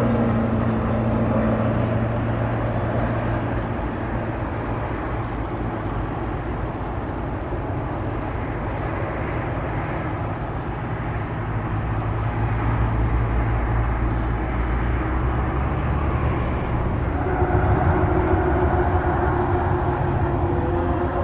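Jet engine noise from Azul Airbus A320neo airliners with CFM LEAP-1A turbofans: a steady low rumble through the landing. About seventeen seconds in, a whine with several steady tones comes in over it, from the engines of an A320neo taxiing.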